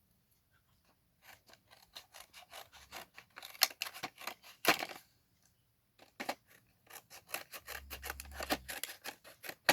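Scissors snipping through plastic packaging in quick runs of sharp clicks, pausing briefly about five seconds in.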